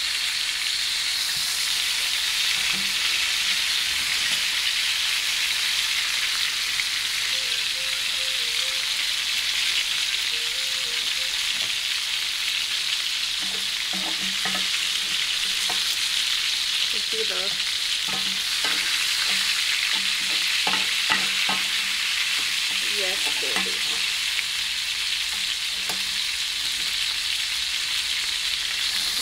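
Thick ribeye steak searing in clarified butter with garlic and rosemary in a pan over high heat: a steady sizzle with scattered small pops.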